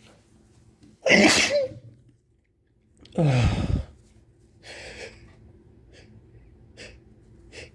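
A man sneezing twice, about two seconds apart, each a loud voiced blast that falls in pitch, followed by a softer breathy sound. These are allergy sneezes.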